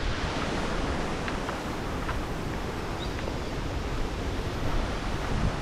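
Strong storm wind blowing steadily, rumbling on the microphone.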